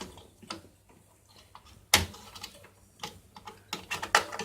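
Plastic clicks and knocks as a RAM module is unlatched from its motherboard slot and pulled out of the desktop PC. One sharp snap comes about two seconds in, and a quick cluster of clicks follows near the end.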